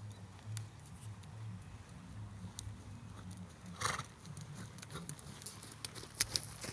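Ridden skewbald pony's hooves on a sand arena, with scattered soft hoofbeats. A short noisy burst comes about four seconds in, and sharper clicks follow near the end as the pony comes close.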